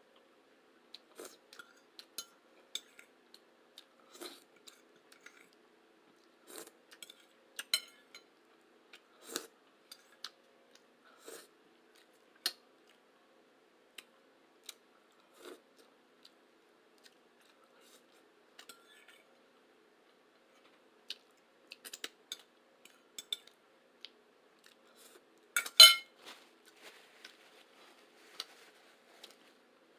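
Close-miked eating sounds: scattered short, sticky chewing clicks and light taps of cutlery on a plate, with one much louder clink late on.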